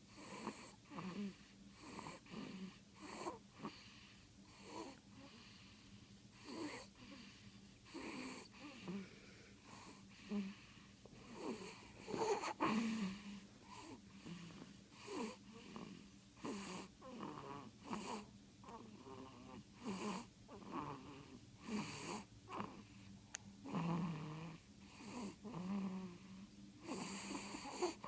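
Two-week-old baby snoring in sleep: short breaths about once a second, many with a low buzzing pitch.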